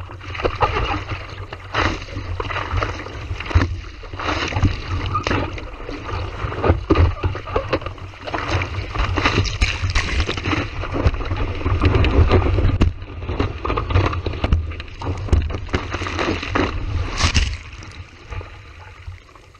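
Strong wind buffeting the microphone in irregular gusts, a heavy low rumble with crackling bursts, over the wash of the sea.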